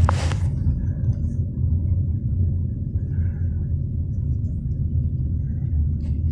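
Steady low rumble of road and engine noise inside a moving car's cabin, with a short sharp noise right at the start.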